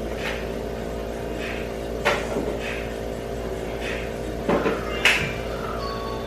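Knocks and clatters of items being handled and put away in a kitchen: one sharp knock about two seconds in, then a few more close together near the end.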